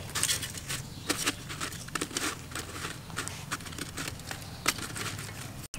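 Lemongrass stalks being laid and shifted by hand on a bed of coarse salt in an aluminium pot: irregular light clicks, crunches and rustles.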